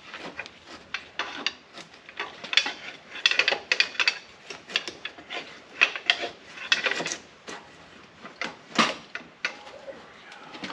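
Irregular clunks, knocks and scraping of metal as the cylinder head of a 1932 Ford Model B four-cylinder engine is worked loose, rocked side to side on its studs by hand. The knocks come in uneven clusters, loudest around the middle and near nine seconds in.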